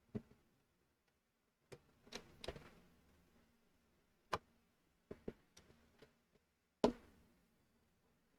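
Plastic LEGO pieces clicking and knocking as parts are handled and pressed together: about nine sharp, irregular clicks, the loudest about seven seconds in, over a faint steady fan hum.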